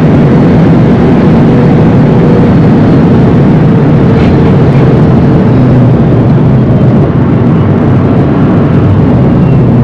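Inside the cabin of a Rimac Nevera electric hypercar at speed: loud, steady road and tyre noise with a low hum.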